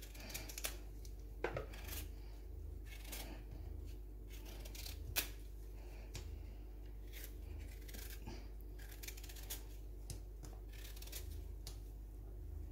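A paring knife peeling the skin off a raw sweet potato: quiet, irregular scraping and slicing strokes, over a steady low hum.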